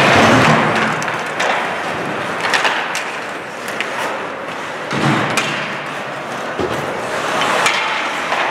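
Ice hockey play sounds: skates scraping on the ice, with scattered sharp knocks of sticks on the puck and thuds against the boards.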